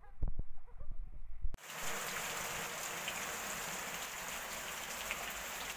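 Steady rain falling on concrete steps and bare ground, with water streaming off the roof edge. It starts abruptly about a second and a half in, after a few faint low knocks.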